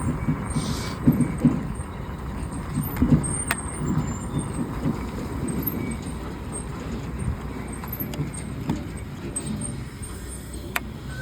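Road traffic noise: a steady low rumble of motor vehicles, with truck traffic among them.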